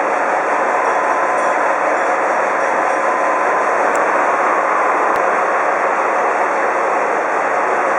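Horizontal boring mill milling a workpiece: a loud, steady machining noise with a faint high tone in the first few seconds.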